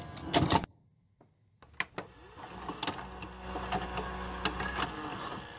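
A VHS cassette slotted into a video recorder: a few sharp clicks as it goes in, then the recorder's loading mechanism runs with a low motor whirr and clunks for a couple of seconds, stopping near the end.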